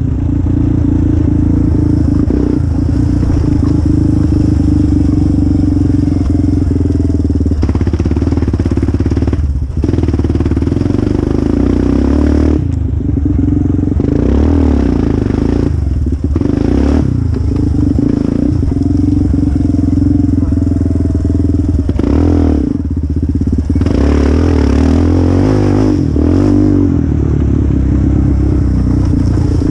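Yamaha Raptor youth quad's engine running hard at high revs, the throttle briefly backed off and opened again several times, about 10, 13, 16 and 23 seconds in.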